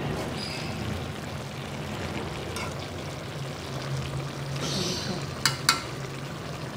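A spoon stirring a thick stew of chicken, potatoes and kachnar buds in a metal pot, with soft scraping and two sharp clicks in quick succession about five and a half seconds in, over a low steady hum.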